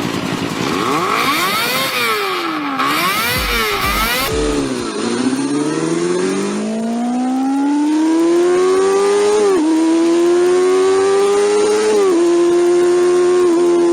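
Kawasaki 250 cc inline-four sport bike engine, very high-pitched: a few quick revs up and down, then a long pull rising in pitch, with two upshifts where the note drops before climbing again.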